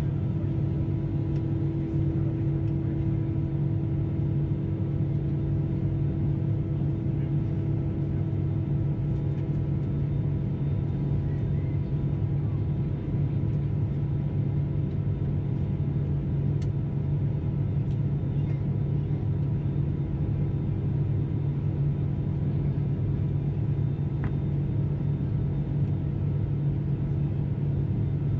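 Steady drone inside the passenger cabin of an Airbus A320-214 at an over-wing seat: the noise of its CFM56-5B turbofan engines and the air system, low and even, with a few faint steady tones above it.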